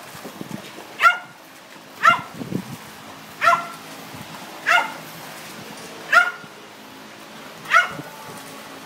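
A dog barking six times, evenly spaced a little over a second apart; each bark is short and sharp and drops in pitch.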